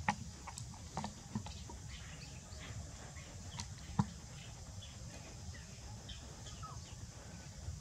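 Faint short chirps and squeaks scattered over a steady low hum, with a few sharp clicks, the loudest about four seconds in.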